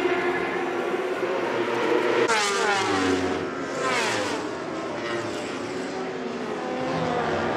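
Racing superbike engines at high revs: a steady engine note, then bikes pass close about two and four seconds in, each with a steep drop in pitch as it goes by.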